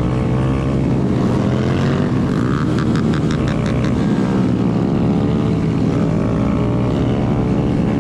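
Several motorcycle engines running together at a steady idle, loud enough to drown out a voice, with a short run of rapid clicks about three seconds in.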